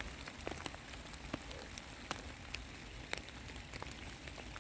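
Steady rain falling, with individual raindrops tapping sharply and irregularly close by, about one or two a second.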